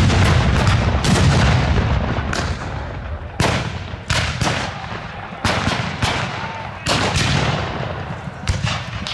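Black-powder musket fire from a Civil War re-enactment battle, loaded with blanks: irregular shots, sometimes two or three close together, each trailing off in echo. At the start a heavier boom rolls on in a deep rumble for about two seconds.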